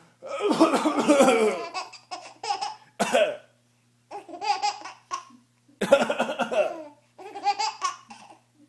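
A young child laughing hard in about six bursts, the first and longest lasting about two seconds.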